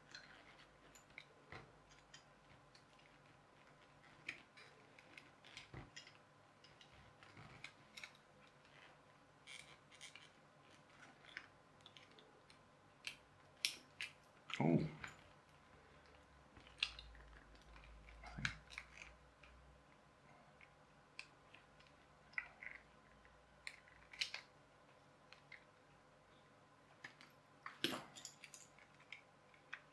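Small plastic parts of a clockwork toy car's gearbox clicking and clacking as they are handled and fitted together, in scattered light clicks, with a louder knock about halfway through.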